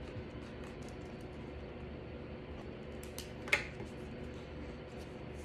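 Quiet paper-and-pen handling: small taps and soft rustles, with one sharper crinkle of paper about three and a half seconds in, over a steady low room hum.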